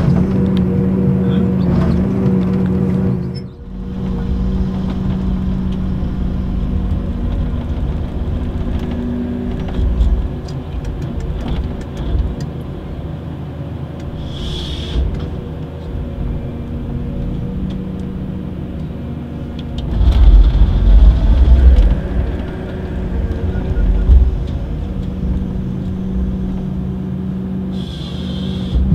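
Komatsu forestry harvester running with a steady engine and hydraulic hum while its head feeds and processes a log, heard from inside the cab. Heavy low rumbling and knocks come about two-thirds through, and a short high whine twice, about halfway and near the end, as the head's saw cuts through the log.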